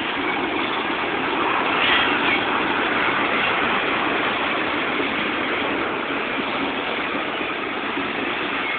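Freight train cars rolling past at close range: a steady noise of steel wheels running on the rails, swelling slightly about two seconds in.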